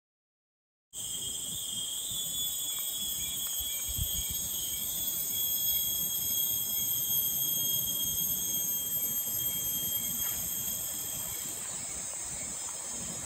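Forest insect chorus: several steady shrill tones held together, starting abruptly about a second in after silence.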